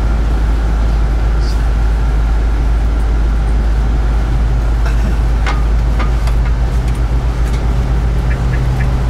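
Inside a motorcoach cruising on the highway: steady low engine and road rumble, with a low steady drone joining a few seconds in. A light, quick ticking starts near the end.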